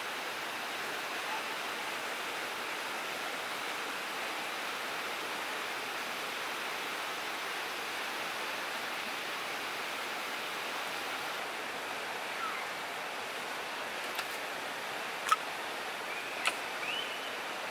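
Steady rushing of a river running beside the campsite. Near the end come a few light clicks of dry wooden kindling sticks being handled, one sharper than the rest.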